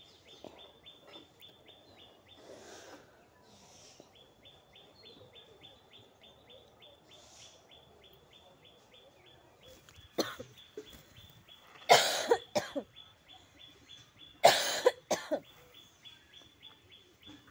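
A woman coughing hard in three loud bouts, about ten, twelve and fourteen seconds in. It is a bad cough that she says is hurting her.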